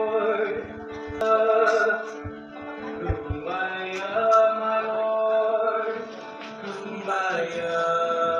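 Music: slow singing in long held notes with a plucked guitar.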